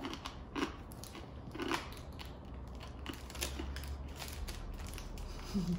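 A hard butterscotch candy being crunched and chewed up between the teeth: irregular sharp cracks and crunches, with a short low hum from the mouth twice near the start.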